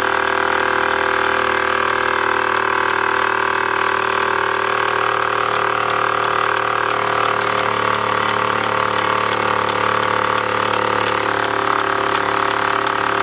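Mamod MEC1 toy steam engine running steadily under live steam, driving a toy workshop's line shafts and pulleys by drive belts: a loud, even mechanical running hum.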